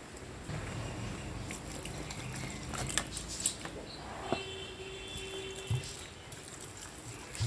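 Water poured from a plastic bottle onto shredded spiny gourd in a plastic colander bowl, running through the strips, with a few sharp clicks and knocks of the bottle and bowl around the middle. A faint steady tone sounds for about two seconds after that.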